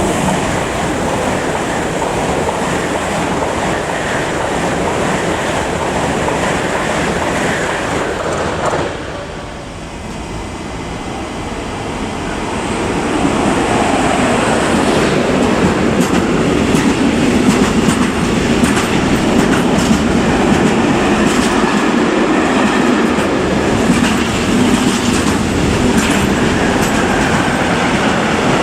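A train passing at close range, with wheels clicking over rail joints. The noise dips briefly about nine seconds in, then builds again and runs louder from about thirteen seconds, with frequent wheel clicks.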